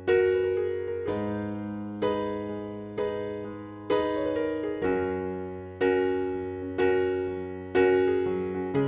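Background music: a gentle electric piano playing chords, one struck about every second and left to fade.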